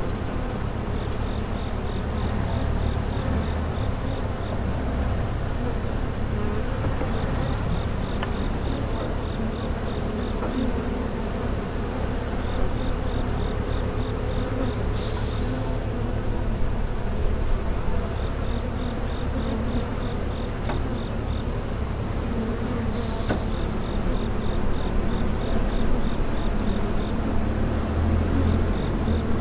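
Dense, steady buzzing of many honeybees stirred up around their hives, over a low rumble. Short runs of rapid, high chirping recur every few seconds.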